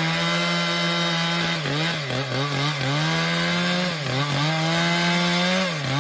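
Chainsaw running at full throttle while cutting wood. Its pitch dips briefly several times in the middle as it loads in the cut, and it falls off near the end as the throttle is eased.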